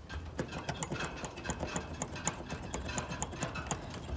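Irregular small clicks and taps of plastic wire connectors and wiring being handled and tugged on a heat pump's defrost control board, a few each second.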